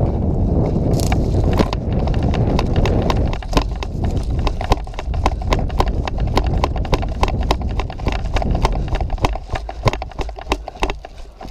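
Quick footsteps on dry dirt and grass, about three steps a second, with wind rushing on the camera microphone in the first second or so.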